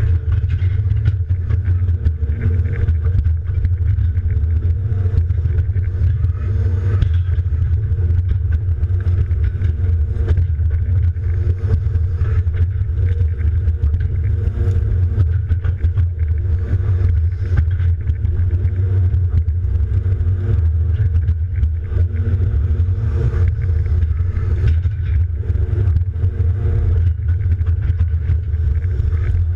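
John Deere 270D LC excavator's diesel engine running steadily under load, heard from inside the cab as a strong low drone, with scattered knocks and clicks from the machine working.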